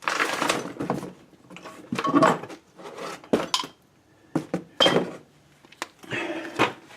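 Short, irregular bursts of metal clinking and scraping from hand tools and steel fasteners as axle-retainer nuts are fitted and tightened on a rear axle.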